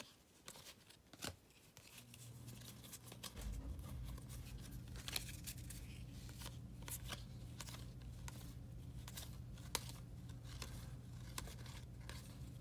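Baseball cards being flipped through by hand, faint sharp ticks as each card is slid off the stack. A low steady hum comes in about two seconds in, with a deeper rumble joining a second later.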